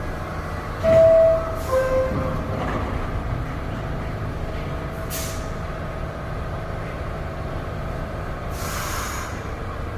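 Door-closing chime of an NYC subway R62A train: a two-note descending chime, one higher tone then a lower one. Short hisses of air from the train's pneumatics follow a few times over the train's steady hum.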